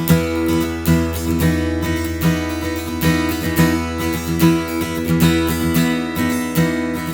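Martin D-18, a mahogany-bodied dreadnought acoustic guitar, strummed in a steady rhythm of repeated strokes on one chord.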